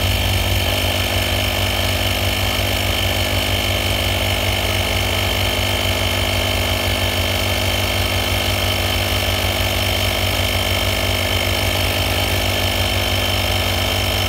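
Dr. Auto 12-volt portable tire inflator's compressor running steadily with a loud buzzing hum, pumping a tire up toward its set pressure of 36 PSI.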